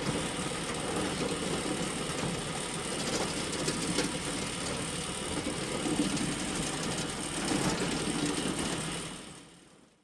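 Hay bale elevator running with a steady mechanical clatter, fading out near the end.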